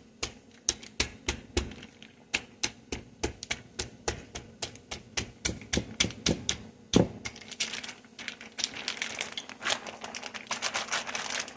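Fist pounding seasoned meat through a plastic bag: a run of sharp slaps, about three a second. From about seven seconds in, a plastic bag crinkles and rustles with quicker small taps as it is handled.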